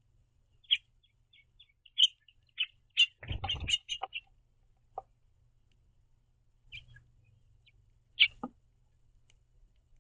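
House finches giving short, sharp chirps at irregular intervals, with a quick run of chirps and a brief rustling burst about three seconds in.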